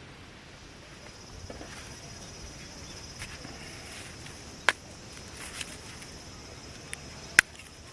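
Steady high-pitched insect chorus, with a few sharp clicks or taps over it, the two loudest about halfway through and near the end.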